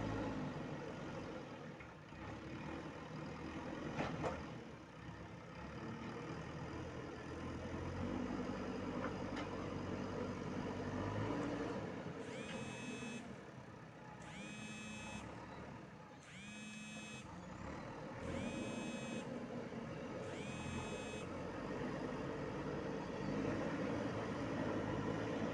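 JCB 3DX backhoe loader's diesel engine working, its revs rising and falling, with a sharp knock about four seconds in. About halfway through, a reversing alarm beeps five times, roughly once every two seconds, as the machine backs up.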